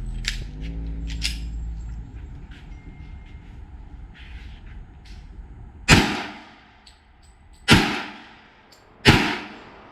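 Three pistol shots from a .40 caliber Glock 27, spaced about a second and a half to two seconds apart, each sharp crack trailing off in echo.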